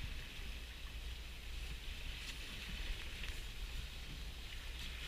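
Steady wind and water noise aboard a small boat out on open water, with a low rumble underneath.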